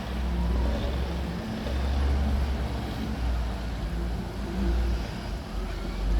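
Bulldozer's diesel engine running, a low rumble that swells and eases.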